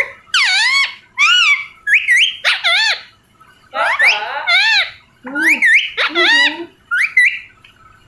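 Parrot calling in a quick run of about ten short, high squawks that slide up and down in pitch, with a brief pause a little past three seconds in.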